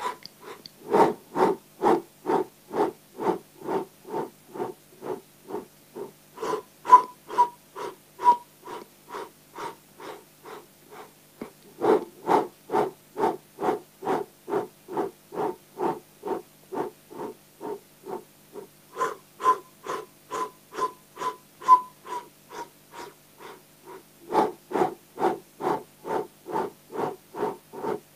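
A man doing segmented mouth breathing: short, sharp breaths in and out through the mouth, about two a second. The breathing swells louder and softer in stretches, and some breaths carry a faint whistle.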